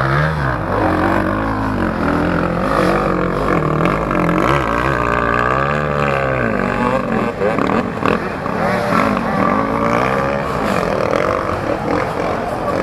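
Several enduro dirt bike engines revving up and down under load on a steep hill climb, their pitch rising and falling unevenly.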